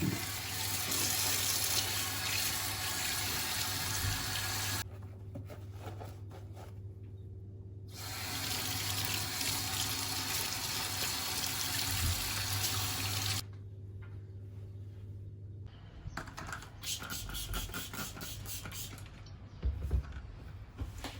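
Water running from a kitchen tap into the sink for about five seconds, stopping, then running again for about five seconds. After that come light clicks and knocks of things being handled.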